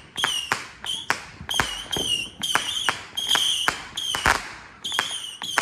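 Consumer fireworks going off in rapid succession: sharp pops and crackles mixed with repeated short, high, steady whistles.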